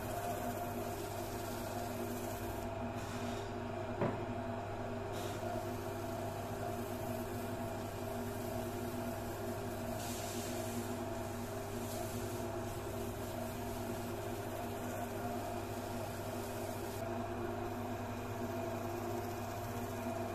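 Wood lathe running steadily with an even motor hum as it spins a wooden vase for wax finishing. There is a single sharp click about four seconds in.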